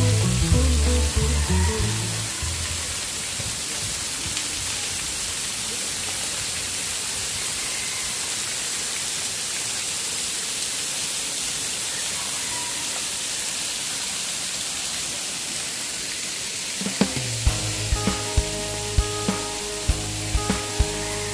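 Steady rushing hiss of a waterfall splashing down a rock face into a pool. Guitar music fades out in the first two seconds, and music with a strong beat comes back in about three-quarters of the way through.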